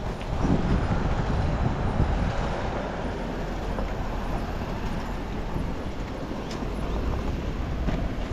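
Steady city street noise: road traffic with a low rumble and hiss.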